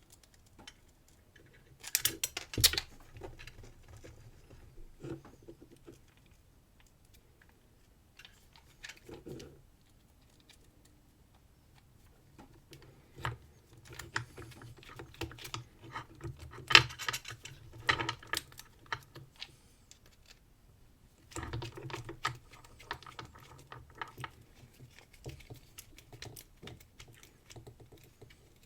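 Small metal clicks, taps and scrapes from handling padlock parts and tiny screws, with a small screwdriver fitting a screw. The clicks come irregularly in clusters with quiet gaps, the sharpest about two-thirds of the way through.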